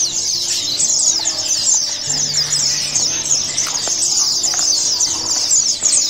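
Many caged kolibri ninja (small sunbirds) chirping together: a dense, continuous chatter of quick, high, down-slurred chirps.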